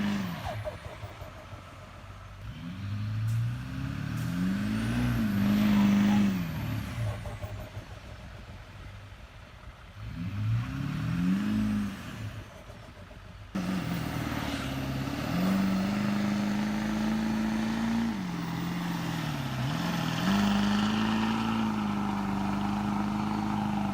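Heavy vehicle engine revving up and down twice, then, after an abrupt cut, running steadily at high revs with one brief dip.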